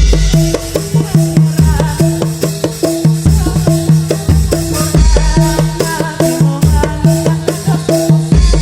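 Topeng Ireng dance accompaniment: drums and pitched percussion playing a fast, repeating figure on a few notes, with deep bass-drum beats about once a second and a rattling shaker sound on top.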